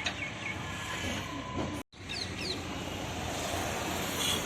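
A small bird chirping in quick repeated falling notes over a steady background noise, fading out half a second in; after a sudden break about two seconds in, the steady noise goes on with a couple of brief high chirps.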